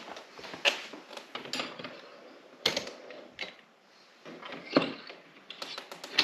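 Handling noise: a string of irregular light knocks and clicks, the loudest about two and a half seconds in, with a quieter spell around four seconds.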